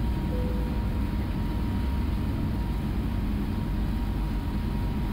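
Steady noise of a jet airliner's engines and airflow during the climb after takeoff, strongest in the low range, with a faint steady high tone. A brief faint tone sounds about half a second in.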